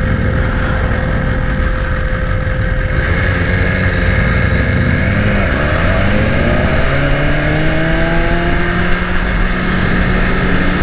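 Motorcycle riding on the road, its engine running under a steady rush of wind noise. About halfway through the engine note drops, then rises steadily as the bike accelerates.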